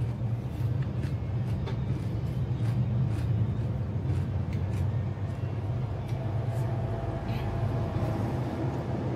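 A steady low mechanical hum, with faint scattered clicks from eating by hand off a plate.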